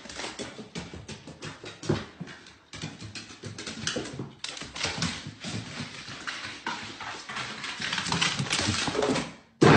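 A small dog's paws and claws clattering on hardwood stairs and floor as it scrambles down: a rapid, irregular run of clicks and light thumps.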